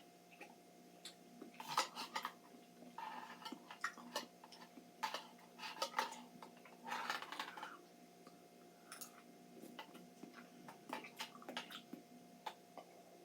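Eating canned pears: scattered clicks of a utensil against the can and short wet chewing sounds, over a faint steady hum.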